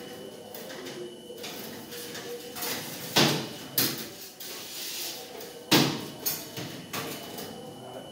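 Several sharp knocks and clatters, the loudest about three seconds in and again near six seconds, over a faint steady hum.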